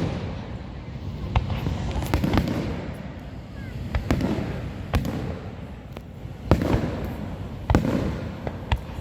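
Fireworks going off: about seven sharp bangs at irregular intervals, each trailed by a low rumbling echo.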